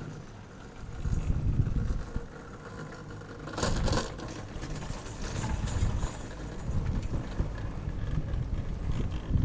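Nippon Cable pair chairlift in motion: low, uneven rumbling from the moving haul rope and chair with wind on the microphone, and a brief louder rattle about three and a half seconds in.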